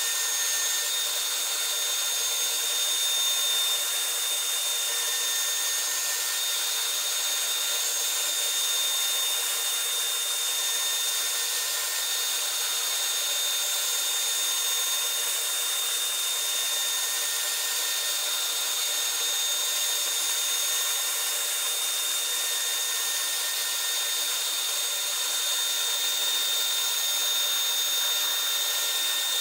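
CNC router spindle running at a steady high-pitched whine while its bit cuts along the edge of a wooden pistol-grip blank, with a hiss of cutting underneath.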